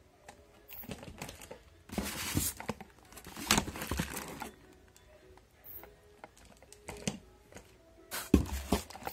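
Plastic wrapping crinkling as bottles and boxed cosmetics are moved around inside a cardboard box. It comes in several separate bursts of rustling and light knocks with short pauses between, loudest a few seconds in and again near the end.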